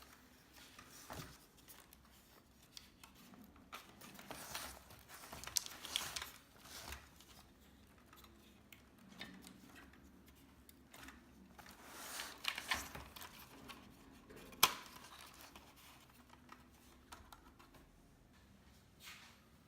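Faint, scattered handling noises: small clicks, scrapes and rustles, with one sharp click about fifteen seconds in.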